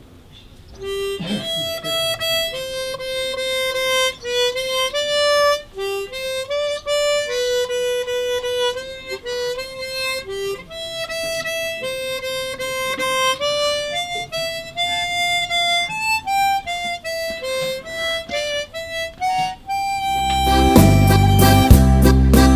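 Solo harmonica playing a slow melody one note at a time, with long held notes. Near the end a louder band with keyboard and bass comes in.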